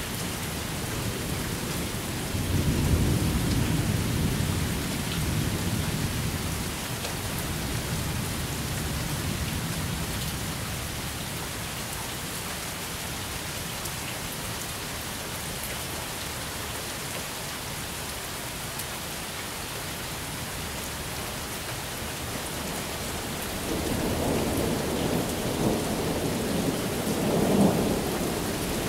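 Thunderstorm: steady rain falling, with a roll of thunder rumbling in a few seconds in and dying away over several seconds, and a second roll building near the end.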